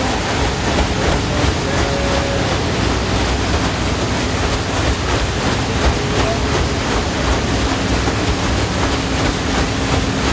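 Steady rushing of water and wind aboard a paddle-wheel boat under way, over a low steady hum.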